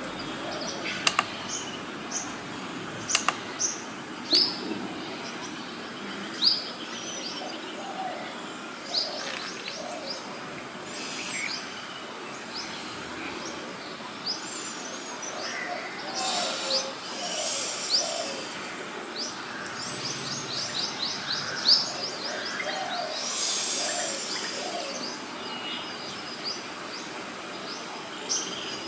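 Several birds chirping and calling: many short, high notes and quick rising-and-falling calls, with lower notes mixed in. A few sharp clicks come in the first few seconds.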